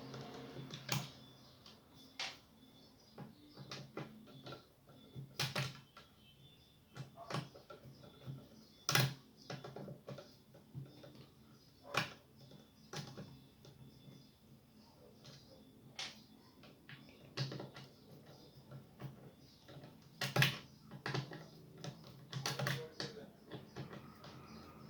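Scattered clicks and knocks of a Logitech computer-speaker subwoofer's housing being handled and taken apart, at irregular intervals of a second or two.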